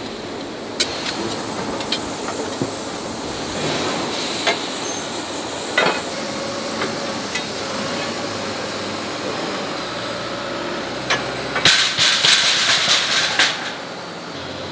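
Metal clanks and knocks as red-hot steel shackle forgings are handled with tongs, over a steady hiss of forge-shop noise. Near the end comes a quick run of clattering metal strikes.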